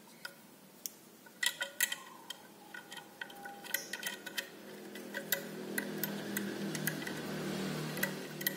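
Small metallic clicks and taps as a steel mounting bracket is fitted and fastened with a nut onto the back of a snail horn. A low hum builds up in the background in the second half.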